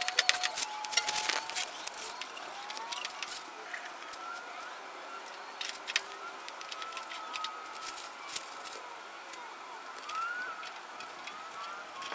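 Black plastic garbage bag crackling as it is handled and stuffed with pulled weeds, densest in the first second and a half, then only scattered crackles. Faint high gliding whistles sound on and off behind it.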